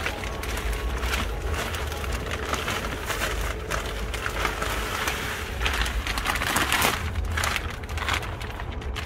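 Potting mix pouring out of a plastic bag into a plant pot: a gritty, rain-like hiss of soil sliding and landing, with the bag crinkling, swelling loudest about six to seven seconds in.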